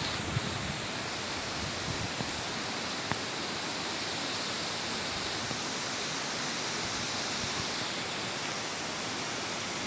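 Steady rushing of storm wind and rain, with a few faint ticks.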